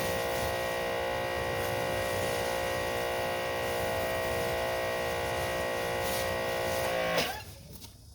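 Electric pressure washer running steadily with a whining motor and the hiss of water spraying through a surface cleaner, then winding down and stopping about seven seconds in.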